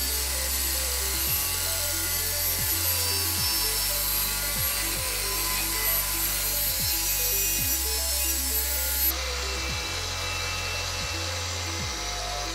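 Corded INGCO angle grinder grinding iron with a grinding disc: a steady harsh grinding noise that turns less bright about nine seconds in. Background music plays underneath.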